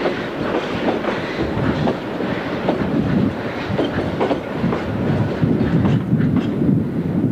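Goods train of covered wagons rolling past close by, its wheels clattering over the rail joints in irregular clicks and knocks over a steady rumble.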